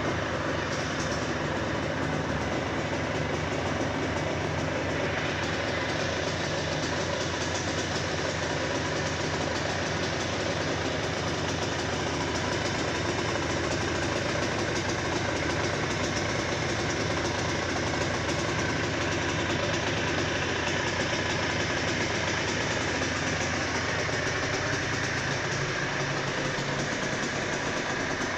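Aprilia RS 125's single-cylinder two-stroke engine idling steadily.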